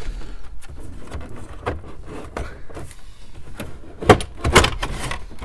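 Plastic dash bezel being handled and pulled away from the dash while its wiring harness connectors are unplugged: scattered plastic rustles and clicks, with two sharper knocks about four seconds in.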